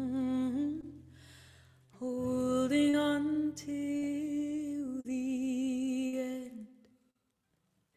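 A woman sings long, held wordless notes over a ringing acoustic guitar, dropping away briefly about a second in and stopping about a second before the end.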